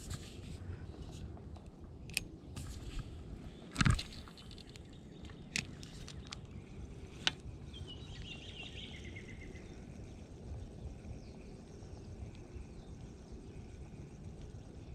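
Outdoor background noise with a steady low rumble, and a bird calling once about eight seconds in, a short chirping trill falling in pitch. A few sharp clicks and one louder thump about four seconds in.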